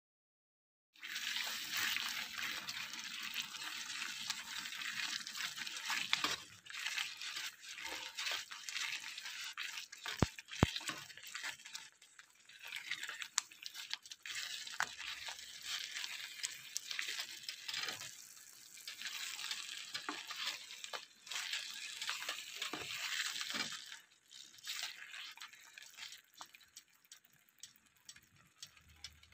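Silicone spatula stirring and folding a thick, wet paste in a non-stick frying pan: a wet squelching, scraping hiss that starts about a second in and comes in spells of a few seconds. Two sharp clicks about ten seconds in; quieter, ticking strokes near the end.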